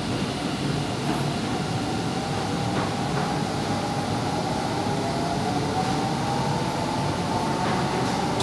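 Metro train running, heard from inside the carriage: a steady rumble of wheels on rail, with a faint whine that slowly rises in pitch as the train gathers speed.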